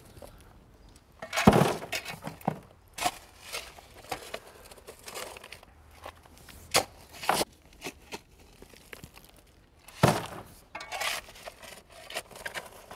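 Steel shovels digging into a pothole, scraping and crunching through loose gravel, soil and broken asphalt chunks in a series of irregular strokes with clinks of stone. The loudest strokes come about one and a half seconds in and again about ten seconds in.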